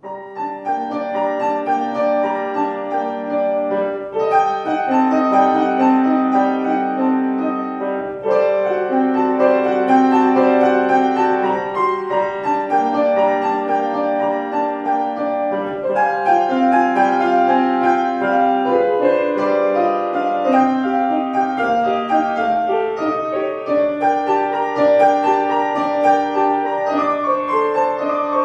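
A grand piano played solo: a continuous classical piece of many quick notes, swelling from soft to full right at the start.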